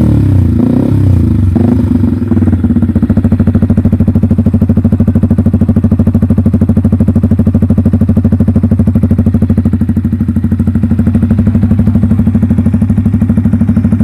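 Yamaha XSR155's single-cylinder engine running loud through a newly fitted SC Project aftermarket exhaust. It is revved briefly in the first couple of seconds, then settles into a steady idle with an even exhaust pulse.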